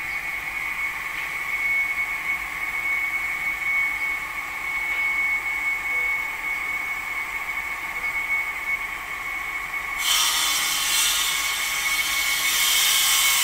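A machine running with a steady high whine; about ten seconds in a louder, harsher hiss joins it.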